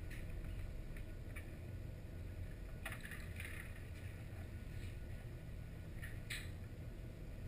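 Underwater pool ambience heard through a submerged camera: a steady low rumble with scattered faint clicks and crackles, the loudest about three seconds in and again just after six seconds.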